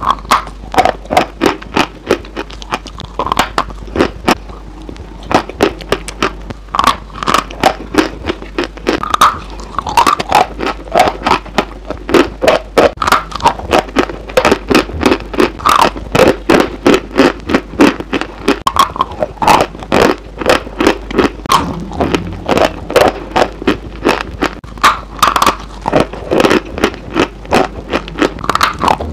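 Close-miked biting and chewing of a crisp food, a continuous run of sharp crunches a few times a second.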